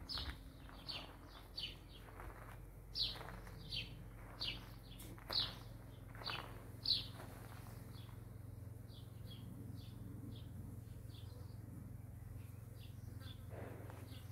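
A small bird chirping over and over: short, high chirps coming about once or twice a second, loud at first and growing fainter about halfway through, over a low steady hum.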